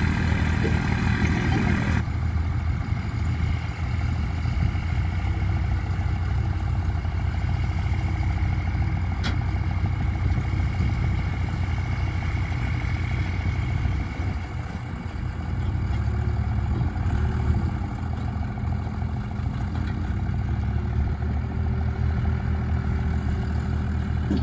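Heavy vehicle engine running steadily at low revs, its note dipping briefly a little past halfway, with a faint steady whine above it.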